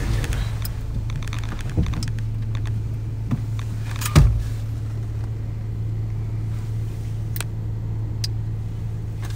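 Car engine idling steadily, heard from inside the cabin, with a few light clicks and a single sharp knock about four seconds in.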